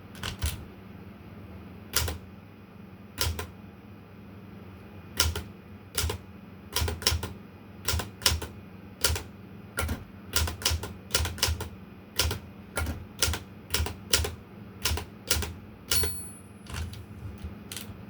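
Olympia Traveller de Luxe manual portable typewriter being typed on: sharp, uneven key strikes, a few spaced-out ones at first, then quicker runs of keystrokes. A brief ringing tone sounds near the end.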